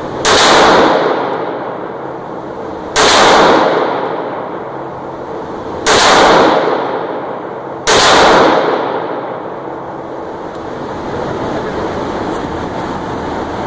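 FN Five-seveN pistol (5.7×28mm) fired four times, the shots spaced two to three seconds apart, each followed by a long ring-out. A steady background rumble fills the last few seconds after the final shot.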